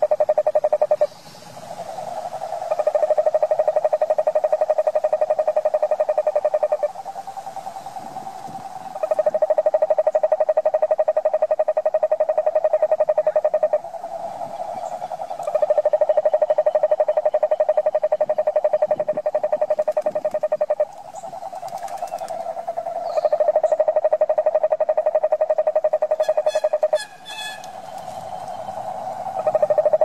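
Toads calling in chorus: long, steady trills of about four to five seconds each, one after another. A softer trill from another toad fills the short gaps between them.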